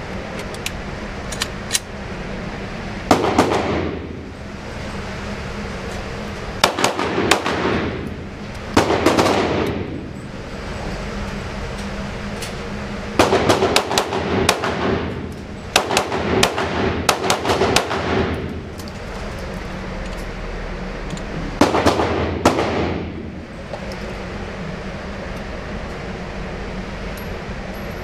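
Glock 19 9mm pistol fired at an indoor range: shots come singly and in quick strings, each followed by a long echoing decay off the hard walls, over a steady low background hum.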